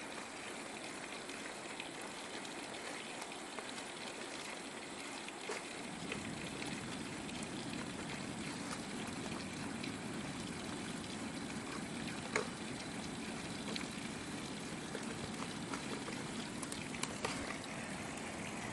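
Flowing water from a stream or river, a steady rushing that grows a little fuller about six seconds in, with a few faint clicks and knocks.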